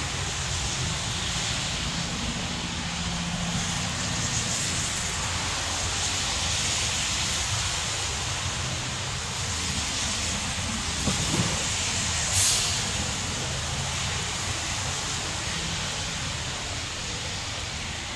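Amtrak passenger train of stainless-steel coaches rolling away along the electrified main line, a steady rumble and rail noise with a low hum. A brief sharp hiss comes about twelve seconds in.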